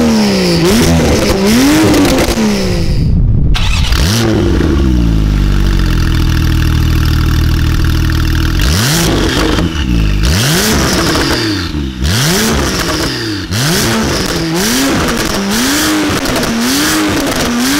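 Porsche 991.2 Carrera 4S twin-turbo flat-six revved through an Fi Exhaust valvetronic catback. Quick throttle blips rise and fall in pitch, then a brief drop about three seconds in. The engine runs steadily for about five seconds, then the blips resume at about one a second.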